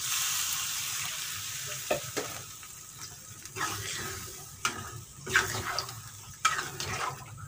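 Liquid hissing and sizzling in a hot pan, fading over the first few seconds, then a spatula scraping and knocking against the pan as the mixture is stirred, about one stroke a second.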